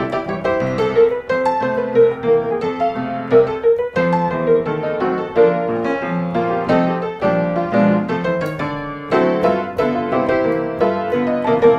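Background piano music, a steady run of notes without a break.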